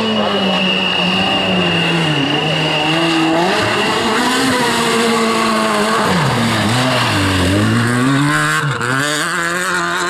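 Renault Clio rally car's engine at high revs on a gravel stage. Its pitch climbs and falls back several times, with quick drops at lifts and gear changes about two, three and a half, six, seven and a half and nine seconds in.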